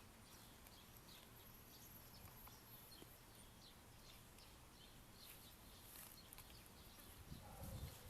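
Near silence: faint outdoor background with scattered faint, short high chirps, and a soft low sound near the end.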